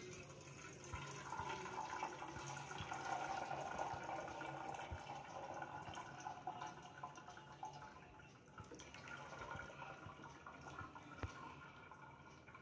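Whey from curdled milk pouring out of a steel pot onto a cloth-lined strainer, splashing and trickling as it drains through; the pour is heaviest for the first several seconds and thins out after about eight seconds. A single light knock near the end.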